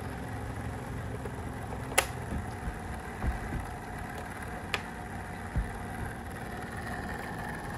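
Restored rechargeable battery fan running with a steady hum, with two sharp clicks about two and nearly five seconds in and a few soft low thumps.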